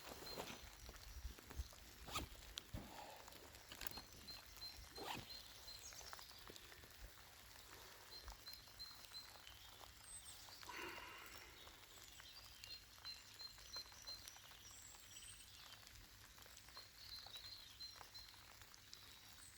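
Near silence: faint outdoor ambience with a few soft knocks in the first few seconds and a faint, high, evenly repeating series of short notes that comes back several times.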